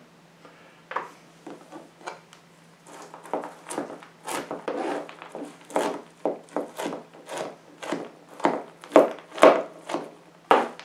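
Kitchen knife chopping black walnuts on a plastic cutting board: a series of short knocks of the blade striking the board. The knocks are sparse at first, then come steadily at about two a second.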